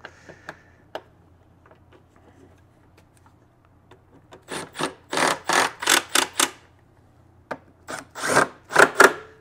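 A Milwaukee Fuel cordless driver driving two coarse screws into the plastic blower housing in short trigger bursts, one run about halfway through and another near the end. Faint clicks of screws and tools being handled come before.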